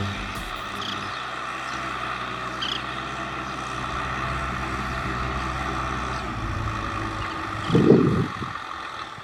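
Kubota M6040SU tractor's diesel engine running steadily, with a brief louder low burst about eight seconds in.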